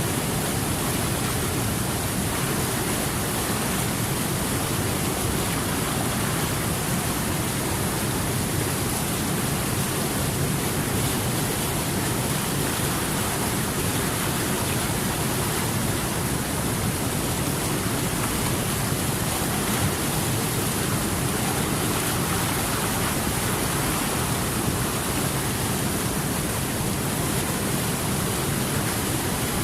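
Steady rushing water, an even unbroken hiss.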